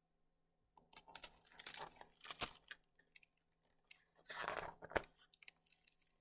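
Pages of a hardcover picture book being turned and handled close to the microphone: paper rustling and crinkling with small clicks, in two bursts starting about a second in.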